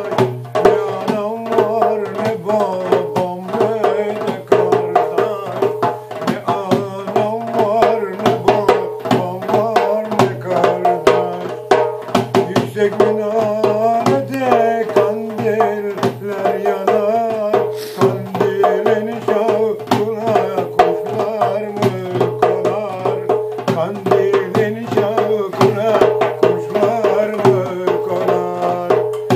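Turkish village folk music: a goblet drum (darbuka) beaten in a quick, steady rhythm under a melody on a small stringed instrument, with a steady low drone beneath.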